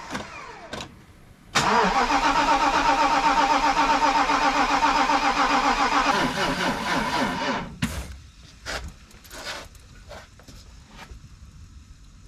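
Mercedes-Benz 560SEC's V8 being cranked over on its starter: a steady, pulsing run begins suddenly about a second and a half in and cuts off after about six seconds. A few scattered clicks follow.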